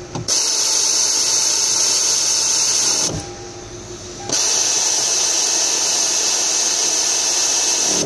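A power tool running in two long bursts, about three and four seconds long, with a brief pause between; a steady, hissy whir that starts and stops abruptly.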